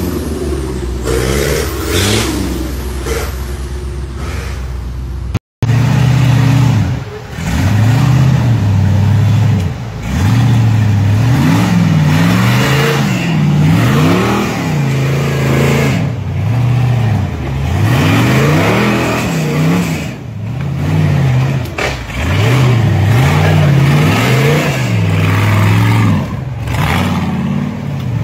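Modified off-road 4x4 engine revving hard over and over, its pitch climbing and dropping every second or two as the vehicle works through mud and a rocky river crossing. The sound cuts out briefly about five seconds in.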